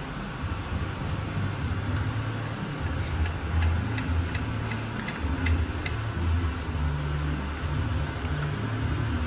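A metal spoon clicks lightly several times against a plastic tub as chili sauce is scraped out into a pot, over a steady low rumble.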